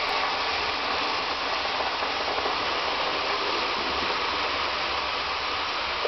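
A steady, even rushing noise with no distinct events in it.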